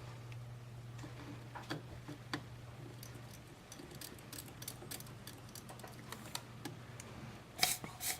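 Small scattered ticks and clicks of hand tools working on a circuit board during desoldering, over a steady low hum, with two louder sharp snaps close together near the end.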